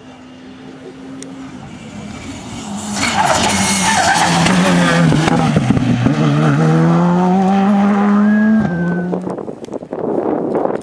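Rally car engine at full throttle, climbing in pitch through the gears as the car comes through, loudest from about three seconds in, then cutting off sharply near nine seconds in.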